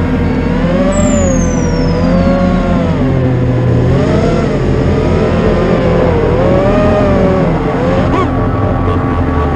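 The four brushless motors (ZMX Fusion 2206 2300kv) of an FPV racing quadcopter spin DAL 5040 triblade propellers. They make a loud whine whose pitch rises and falls constantly as the throttle changes in flight.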